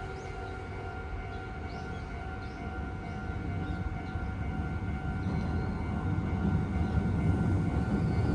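Japanese level crossing warning bell ringing steadily while a Meitetsu train approaches, its rumble growing louder through the second half.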